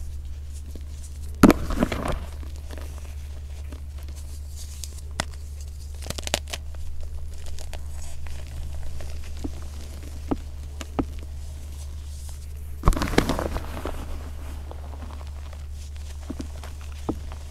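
Reformed gym chalk, dyed blue, crushed and crumbled by hand into powder: two loud crunches, about a second and a half in and again about two thirds through, with softer crumbling and crackles between. A steady low hum runs underneath.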